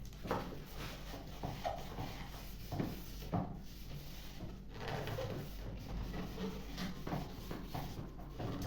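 Irregular knocks, taps and rubbing from wood being handled on a workbench, with a few sharper knocks near the middle.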